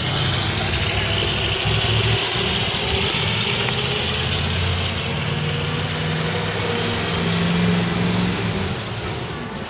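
Blue Bird school bus on a Chevrolet chassis pulling away, its engine running under load and rising in pitch over a few seconds. The sound fades near the end as the bus moves off.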